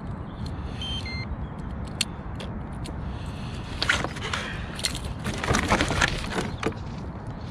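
A landing net being grabbed and brought forward in a kayak: a sharp click about two seconds in, then two spells of rustling and scraping, over a steady low rumble.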